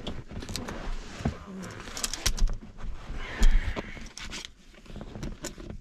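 Handling noise of a folding ruler and pencil on a fabric-covered armrest lid: irregular clicks, taps and short scrapes, with a louder knock and scrape about three and a half seconds in.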